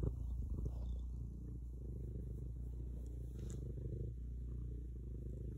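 Domestic cat purring steadily, a rapid, even low rumble close to the microphone.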